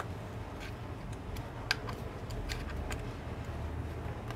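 Light clicks and scrapes of a thin metal spatula prying under a glued Motorola phone battery, working at double-sided adhesive softened with isopropyl alcohol; one sharper click a little under two seconds in.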